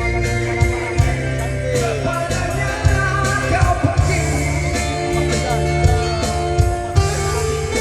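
A band playing a Malay slow-rock song, with guitar, bass and drums under a singing voice that glides between held notes.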